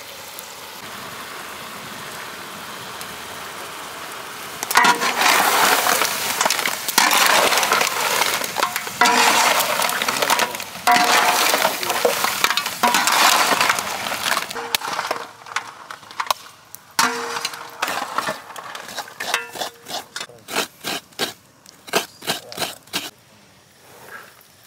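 Crabs in masala cooking in a large pot: a steady hiss, then about five seconds in a loud, dense crackling and sizzling with the knock and scrape of stirring. In the last third it thins to separate knocks and clicks.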